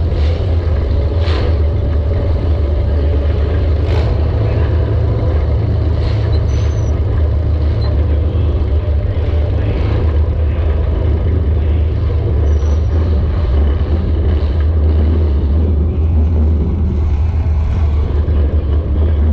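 Compact demolition derby car's engine running with a steady low rumble, heard from on board, with a few short sharp knocks early on.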